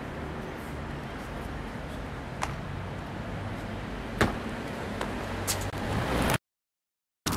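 Street ambience with a steady low traffic rumble and a few sharp knocks, the loudest about four seconds in, as a parkour runner's hands and feet strike a brick wall while climbing over it. The sound cuts out abruptly about six seconds in, then returns briefly.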